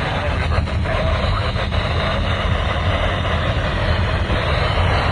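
Radio receiver hissing with heavy static, a steady noise with a few faint crackles in the first two seconds: the sign of a weak, poorly received broadcast signal.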